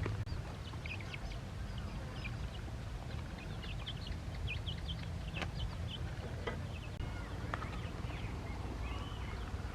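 Ducklings peeping, many short high calls overlapping, with a few sharp clicks and a steady low rumble underneath.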